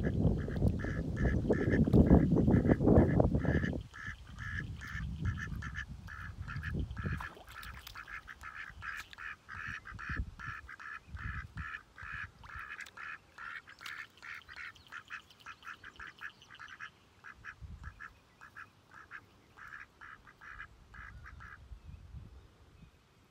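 Runner ducks quacking in a steady run of short calls, about three a second, stopping near the end. A loud low rumble on the microphone covers the first four seconds.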